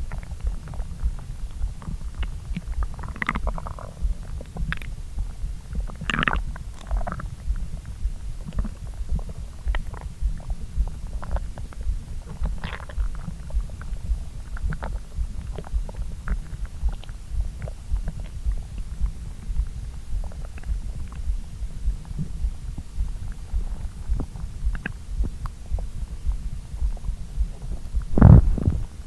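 Human stomach and intestines gurgling while digesting a meal eaten after a long empty-stomach stretch: a continuous low rumble with many short gurgles and pops, and one louder gurgle near the end.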